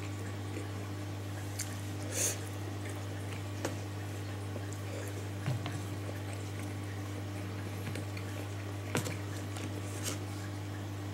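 A handful of light clicks and taps of wooden chopsticks against a plastic food tray over a steady low hum, with a short breathy noise about two seconds in.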